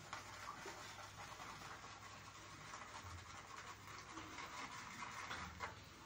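Synthetic shaving brush swirling soap lather in a plastic shaving bowl: a faint, steady, slightly uneven scratchy swishing as the lather is built up.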